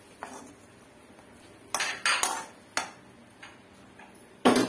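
A metal spatula scraping and knocking against an iron kadai as fried cashews and raisins in ghee are pushed out of it onto rice in an aluminium pot. There are several separate clanks and scrapes, with a sharp clank near the end the loudest.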